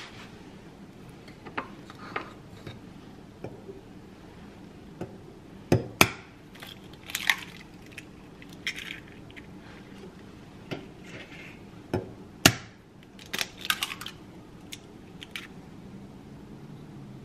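Eggs cracked on a hard edge into a wooden bowl: a pair of sharp knocks about six seconds in and another pair about twelve seconds in, with lighter clicks and shell rustling between.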